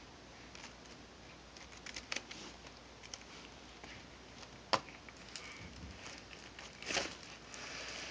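Faint, scattered taps and scratches of a baby's hands patting woven rush chair seats, with a sharper click a little past halfway and a louder rustle near the end.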